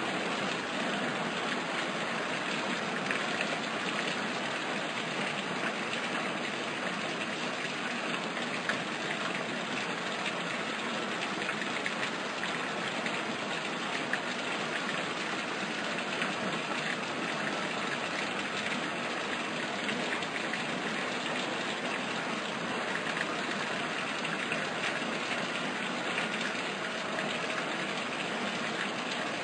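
Nutrient solution poured through a funnel into a styrofoam hydroponic tub: a steady, unbroken rush of running water.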